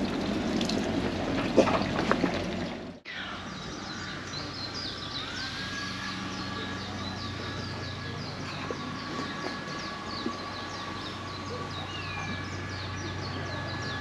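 Water running and splashing at a temple's stone purification basin, with a few knocks of ladles. About three seconds in it gives way to quieter outdoor ambience: birds chirping over two steady high tones.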